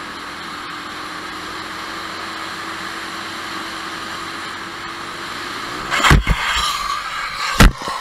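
Motorcycle running at a steady speed with wind rush. Its engine note drops about five and a half seconds in, and then it crashes: a loud impact about six seconds in, scraping noise, and a second, heavier impact near the end.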